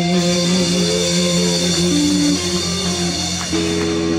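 Live country-rock band playing the final bars of a song: guitars, bass and drums, with notes held steady, a last sung word at the start.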